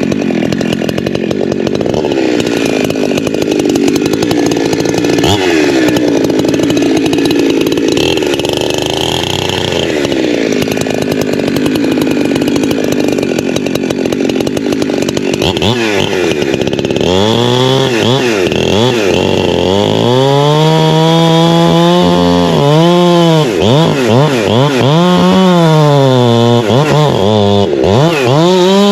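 Holzfforma G372XP Pro two-stroke chainsaw cutting through a large tree trunk under load. From about halfway, its engine pitch swings up and down over and over as the saw revs and bogs in the cut.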